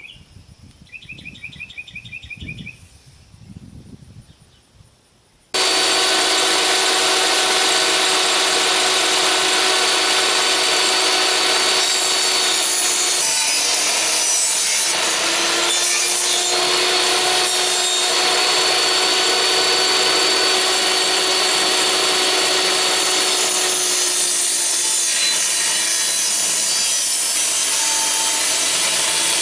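Benchtop table saw switched on about five seconds in, its motor and blade running at a steady whine while it cuts through wood. Before it starts, insects chirp faintly over small handling noises.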